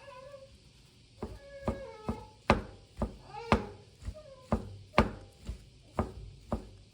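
Sharp knocks, evenly spaced at about two a second, starting about a second in, with short vocal sounds that rise and fall in pitch between them.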